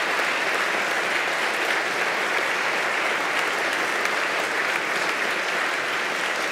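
A chamber full of legislators applauding together: steady, even clapping.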